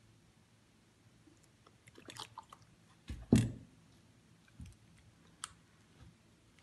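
Metal spoon clicking and scraping against a small ceramic bowl while stirring corn flour and sahlab powder with a little milk into a thick paste. One loud thump comes about halfway through.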